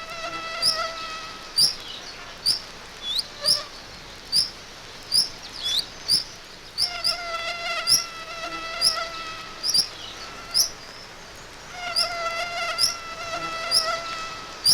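Anopheles mosquito in flight: a thin, high whine with overtones. It swells and fades in three stretches of two to three seconds each, as the insect passes close. Short, sharp high chirps repeat about once a second throughout and are louder than the whine.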